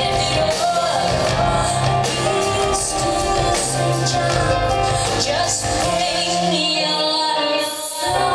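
Live concert music: a woman singing over a band with bass and drums. The low end drops out briefly near the end before the band comes back in.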